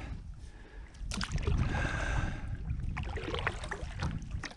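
A kayak on the water: water splashing and lapping around the hull, with a sharp knock about a second in.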